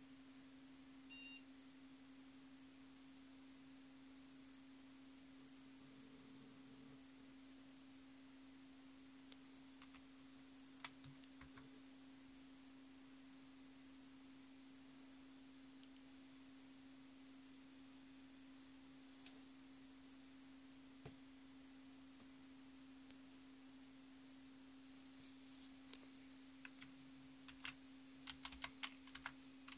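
Near silence with a steady low hum, broken about a second in by a single short computer beep during the BIOS power-on self-test. A few scattered clicks follow, then a run of rapid computer-keyboard keystrokes near the end as text is typed at the Windows XP log-on box.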